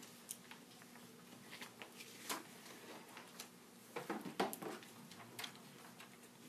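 Sheets of paper rustling and shuffling as they are handled, with scattered light taps and clicks, busiest about two seconds in and again around four seconds. A faint steady hum runs underneath.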